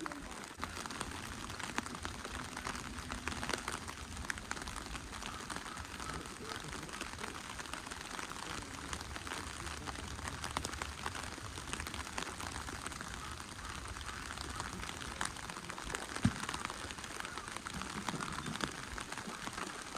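Steady rain falling, a constant hiss made of many fine drop ticks, with one sharper drop hit about 16 seconds in.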